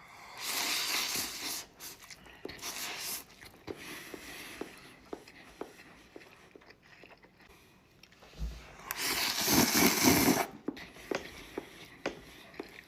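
Close-miked eating of instant ramen noodles: chewing and wet mouth clicks, with a few louder noisy stretches of eating sound, the loudest a little past the middle.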